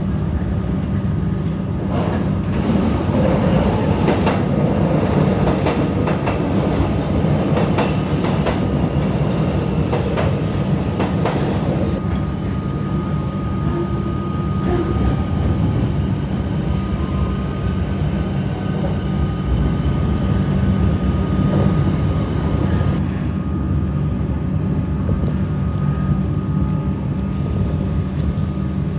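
Train running on rails: a steady rumble, with irregular clicks through the first twelve seconds or so and a faint steady whine.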